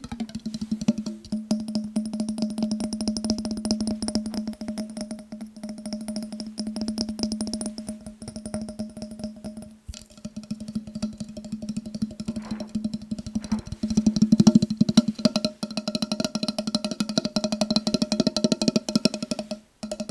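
Fast tapping on a glass mason jar: a dense run of quick taps, with the jar ringing at a steady low tone underneath. The tapping breaks off briefly about ten seconds in and again near the end.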